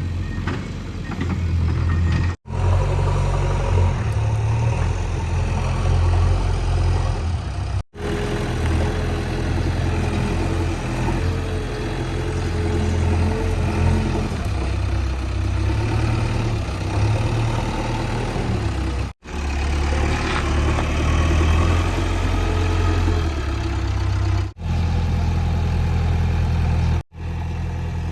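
JCB 3DX backhoe loader's diesel engine running steadily under working load, cutting off abruptly several times where the footage is cut.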